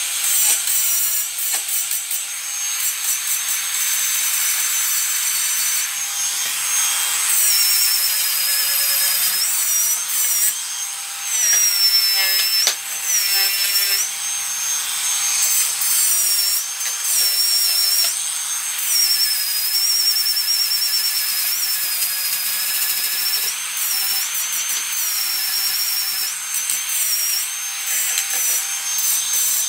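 Angle grinder grinding on a steel buggy axle, its high whine dropping in pitch each time the disc is pressed into the metal and rising again as it eases off.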